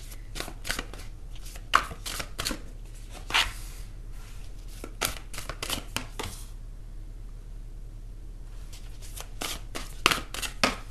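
A deck of tarot cards being shuffled by hand: a run of short, sharp card clicks and slaps, a pause of a couple of seconds, then a few more clicks near the end.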